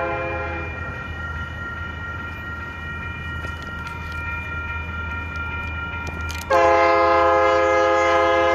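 Union Pacific locomotive's air horn sounding for a crossing over the low rumble of the passing train: a blast that breaks off under a second in, fainter higher horn tones hanging on, then a second, louder blast about six and a half seconds in. A few clanks sound in between.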